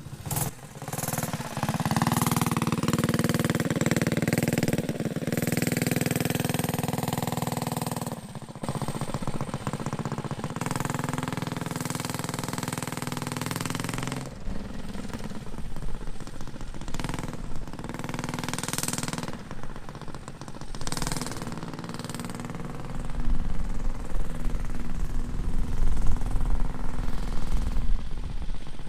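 Predator 212cc single-cylinder four-stroke engine on a mini trike running while it is ridden, its pitch rising and falling with the throttle. It gets louder with a heavier low rumble in the last few seconds.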